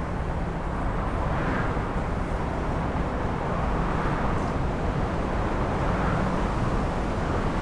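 Heavy storm wind in a city: a steady low rumble with several gusts that swell and fade.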